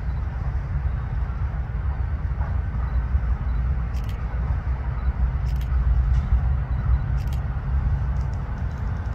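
Freight train running by, a steady low rumble with a few short sharp clicks about a second and a half apart.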